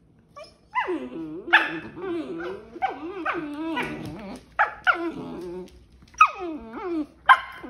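Puppies play-fighting: a string of barks and growly yowls, many starting high and dropping in pitch, with a few short sharp barks near the end.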